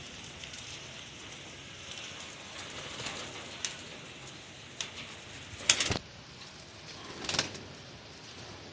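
Janssen racing pigeons cooing, with two short, loud rustling bursts about six and seven and a half seconds in.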